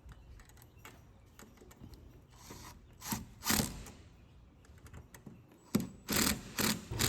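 Hand-tool work on a door closer's metal arm: scattered light clicks and several short rasping bursts of metal on metal, grouped in the middle and again near the end, as the arm is tapped on and screwed down.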